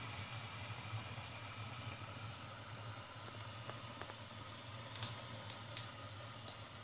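Electric espresso machine heating up: a steady low hum with an even hiss, and a few light clicks in the second half.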